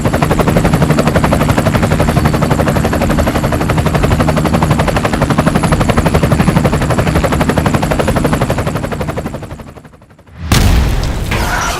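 A loud, very rapid and even mechanical rattle over a steady low hum, fading out near the end, then a sudden loud burst of noise.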